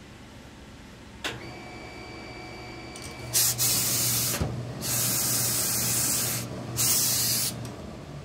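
Steam iron giving three loud hisses of steam over a steady low hum, after a click and a steady high tone lasting about two seconds.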